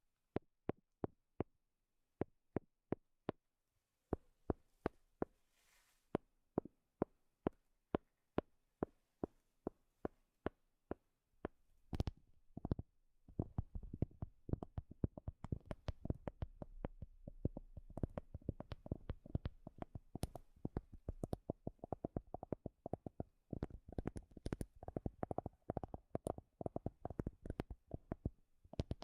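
Tapping on wood: crisp separate taps at about two or three a second, which about twelve seconds in turn into fast, dense tapping, many taps a second.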